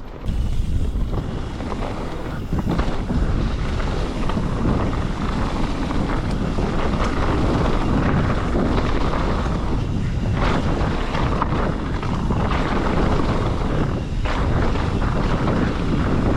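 Wind rushing over a GoPro's microphone as a mountain bike descends a downhill trail, over a steady rumble of tyres rolling on dirt and rock, with scattered knocks from the bike.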